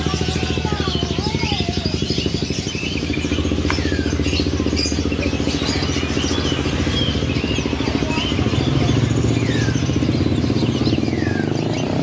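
An engine running steadily with a fast pulsing beat, under scattered chirps and short whistles of small caged birds.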